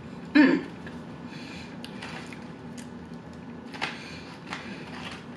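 A short hummed "mm" about half a second in, then quiet eating sounds of chewing a steak fry, with a few faint clicks near the end as fingers touch onion rings in a plastic takeout tray.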